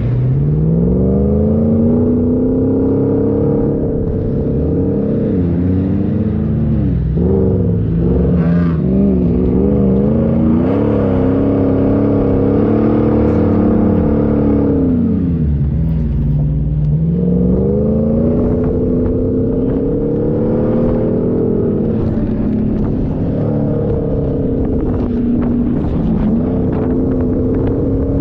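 A 4x4's engine pulling through desert sand, its pitch climbing and falling several times as it accelerates and eases off, with some knocks and rattles near the end.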